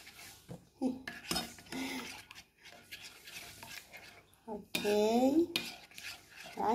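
Metal spoon stirring thin batter in a plate, scraping and clinking irregularly against the plate.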